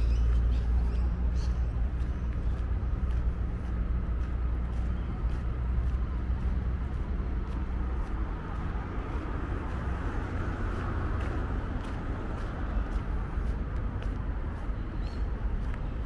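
Wind buffeting the microphone as a low rumble, heaviest in the first half and easing about halfway through, over steady road traffic noise that swells briefly around two-thirds of the way in.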